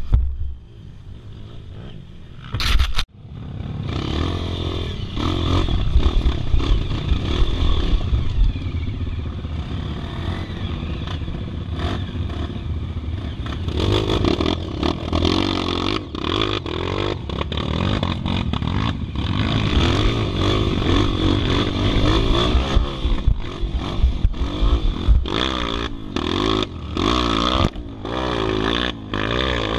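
Dirt bike engines revving up and down at low speed on a muddy, rocky trail climb, with frequent knocks and clatter from the bikes and stones.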